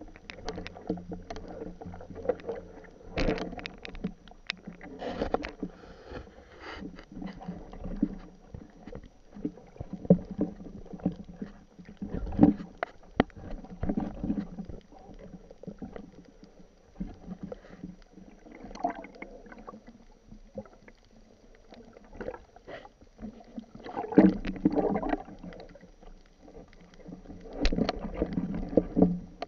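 Muffled underwater noise heard through a speargun-mounted camera's housing: water swishing past, with irregular swells and occasional knocks as the diver swims. The swells are strongest about midway and near the end.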